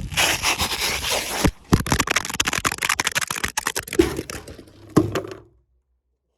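Footsteps and shoe scuffs scraping over an asphalt shingle roof, with a run of sharp clicks and a few heavier knocks, then the sound cuts off suddenly about five and a half seconds in.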